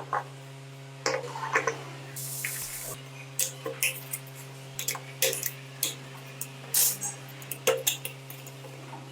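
Irregular clinks and knocks of metal tools and scooter parts being handled, over a steady low hum, with a short hiss a couple of seconds in.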